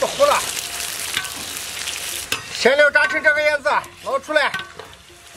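Ginger, scallion, peppercorns and fennel seeds frying in hot rapeseed oil in a wok, a steady sizzle, with a metal ladle stirring and now and then clinking on the pan. The spices are being fried to flavour the oil for chili oil.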